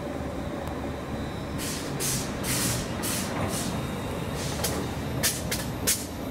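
A train passing on the main line: a steady rumble with a series of short bursts of hiss from about a second and a half in.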